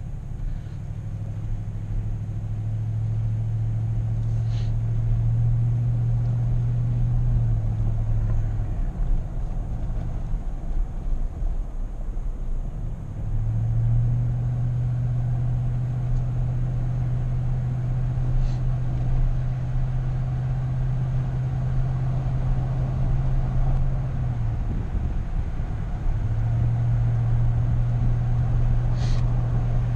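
Car running along a road, heard from inside the car: a steady low engine drone over tyre rumble. The drone fades out twice, about ten seconds in and again near twenty-five seconds, then comes back.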